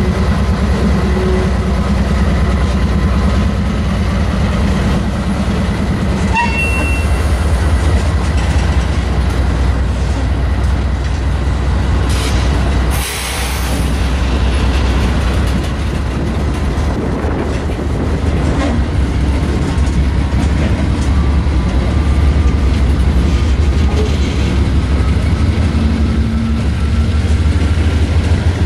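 Freight train of tank cars and open-top gondolas rolling past close by: loud, steady wheel and car noise that runs on without a break.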